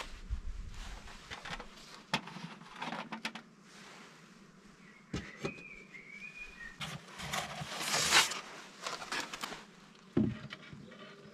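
Knocks, clicks and scraping from a beehive being opened by hand: the wooden lid and hive parts handled, with a louder rush of scraping about eight seconds in.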